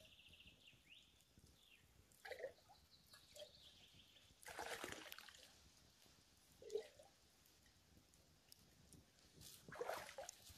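A handful of faint water splashes and trickles as a bottle is dipped into a slow stream and filled, the longest slosh about halfway through.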